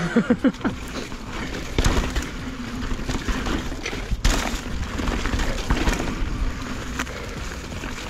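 Mountain bike descending a rough dirt singletrack: tyres rolling over dirt with wind buffeting the microphone, and the bike rattling and knocking over bumps, with a sharper knock about halfway through.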